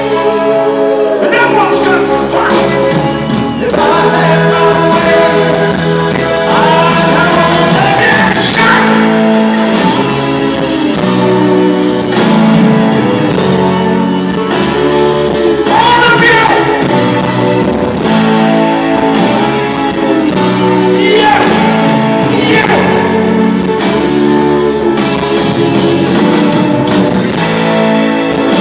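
Live rock band playing loudly in an arena, with singing over the band, heard from among the audience.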